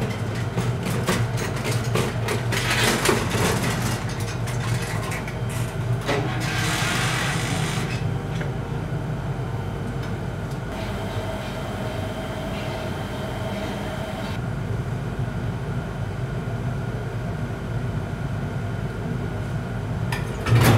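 Steady low hum of cremator machinery, with clicks and knocks in the first few seconds as the coffin is handled on its charging trolley. A short patch of hiss comes about six seconds in.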